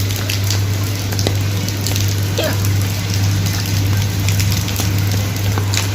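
Steady rain falling, with many separate drops hitting close by, over a steady low hum.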